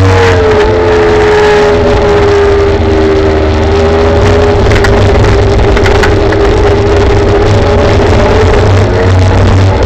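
Kaabo Wolf Warrior GT Pro electric scooter under way: its hub motors give a steady whine that dips slightly in pitch and climbs again near the end. Heavy wind and road rumble lie underneath, with scattered small knocks from the ride.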